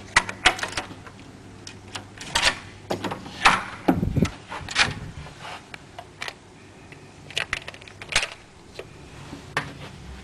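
An irregular string of sharp clicks and clacks, with a duller thud about four seconds in, from a hotel room door and a plastic key card being pushed into the wall power holder.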